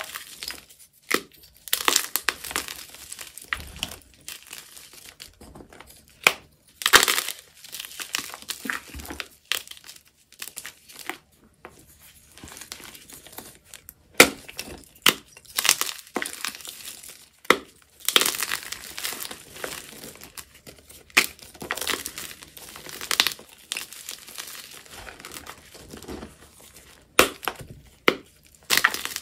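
Blocks of SPRI gym chalk being broken and crushed in bare hands: irregular crunching and crumbling, with a few sharp snaps standing out.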